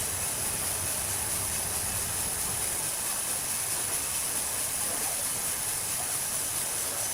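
Sawmill machinery running steadily: a constant high hiss over a low rumble.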